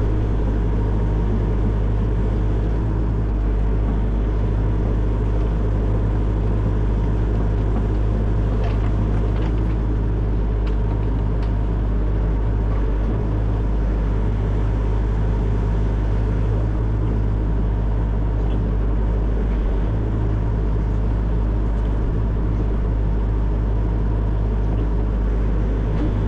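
Excavator's diesel engine running at steady revs, with a few faint clicks about a third of the way through.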